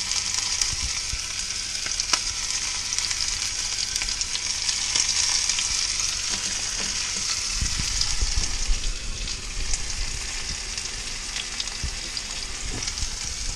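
Sliced sausage sizzling in a little oil in a cast-iron skillet: a steady frying hiss, with a few light clicks.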